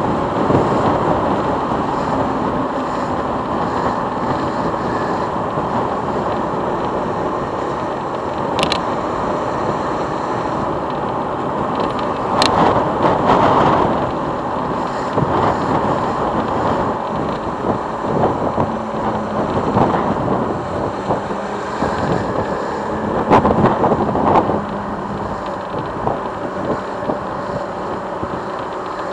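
Motorcycle engine running at low road speed from an on-bike camera, with wind rushing over the microphone. It swells louder briefly a couple of times, about halfway and again some seconds later, with a few sharp clicks.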